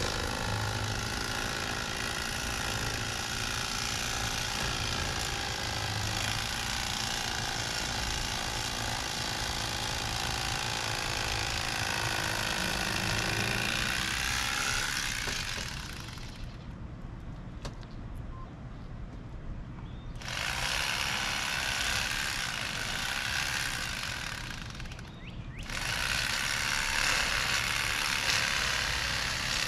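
Corded Rapala electric fillet knife running, its reciprocating blades buzzing as they slice a fillet off a fish. It runs steadily for about fifteen seconds, stops for about four, runs again for about five, pauses briefly and starts up again near the end.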